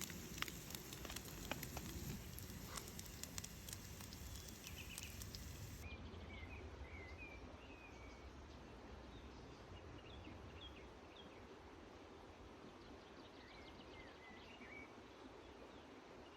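Campfire crackling with scattered sharp pops for about the first six seconds. Then the sound changes abruptly to faint birdsong, short chirps and warbles, over a quiet background.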